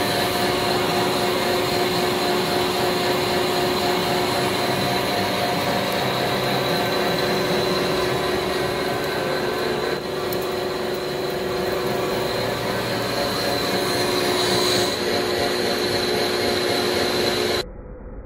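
Large centre lathe turning down the outside of a steel hollow bar: the tool cutting steadily, a continuous rushing noise with a thin high whine over the machine's running. Near the end the sound drops abruptly to a quieter, duller one.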